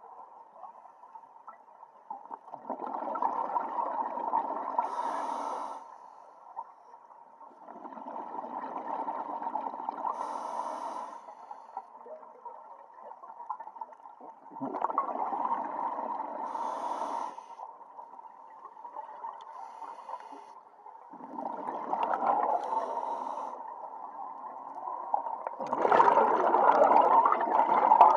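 A scuba diver breathing through a regulator underwater: about five breaths, one every five to six seconds, each a few seconds of bubbling that ends with a brief higher hiss. The last breath is the loudest.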